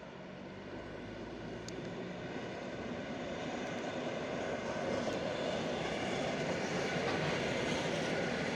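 PKP EN57 electric multiple unit pulling into the station, its running noise growing steadily louder as it comes closer.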